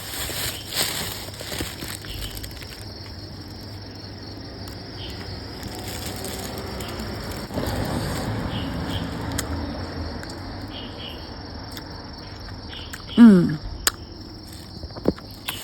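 Insects chirring steadily in the background. A short vocal sound that falls in pitch comes about two seconds before the end and is the loudest thing here.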